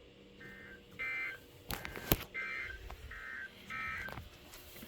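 NOAA weather radio sending its EAS end-of-message data bursts after a tornado watch: five short, buzzy two-tone digital warbles, each under half a second. Two sharp clicks come about two seconds in.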